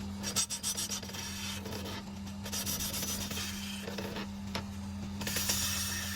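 Repeated rough abrasive scraping strokes on a motorcycle wheel hub's brake surface as it is resurfaced, over a steady low hum.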